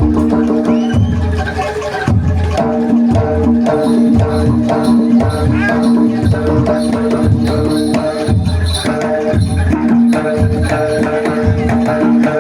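Live jaranan music: drums and other percussion playing under held tones that repeat in a pattern of starts and stops.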